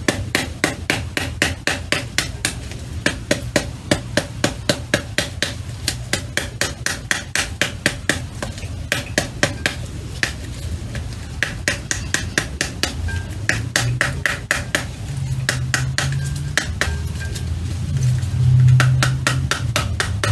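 Cut pomegranate half struck over and over on its back with a metal spoon to knock the seeds out into a bowl: a steady run of whacks, about three a second, with short breaks in the second half.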